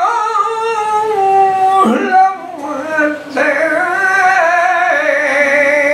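A man singing a flamenco malagueña unaccompanied, holding long wavering notes with ornamented turns. The voice breaks off briefly about two seconds in, then returns for a long held line.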